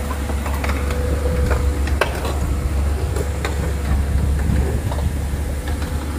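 Hitachi crawler excavator's diesel engine running steadily, with scattered sharp clicks and knocks over it.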